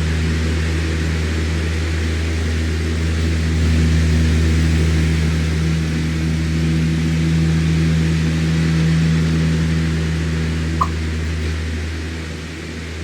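Electric fan running steadily: a low motor hum under a constant airy hiss, swelling and easing slightly. A single short tick sounds about eleven seconds in.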